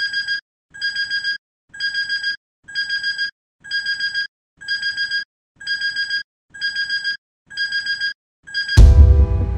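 Digital alarm clock beeping: a high electronic tone in groups of four quick beeps, about one group a second. Near the end the beeping stops and a loud low boom opens a music track.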